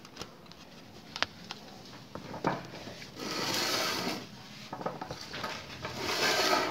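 Handling noises: a few small clicks and knocks, then two stretches of rustling as things are moved about by hand.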